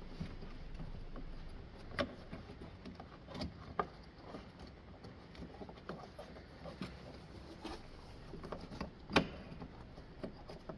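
Scattered clicks and knocks of car parts being handled and fitted by hand during reassembly. The two sharpest knocks come about two seconds in and about nine seconds in.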